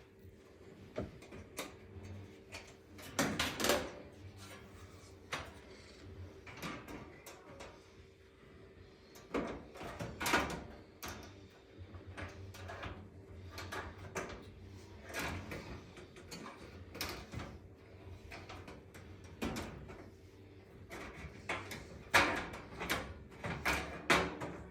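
The range's sheet-metal back panel being handled and fitted into place: scattered clanks, knocks and scrapes, louder about 3 seconds in, around 10 seconds in and over the last few seconds.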